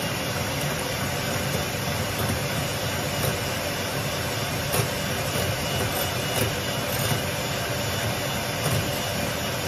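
Electric hand mixer running steadily, its beaters whisking eggs in a glass bowl, with a few sharp clicks where the beaters strike the bowl.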